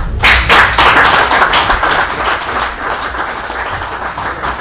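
A small group of people applauding, strongest over the first second and a half and then thinning out.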